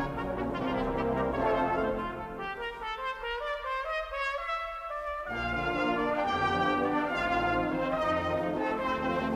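Background instrumental music with long held notes. The lower parts drop away for a few seconds and come back about five seconds in.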